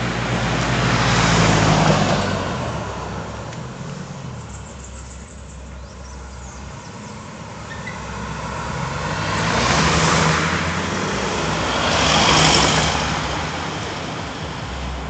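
Cars driving past close by on a road, each a swell and fade of tyre and engine noise: one near the start, then two more close together in the second half.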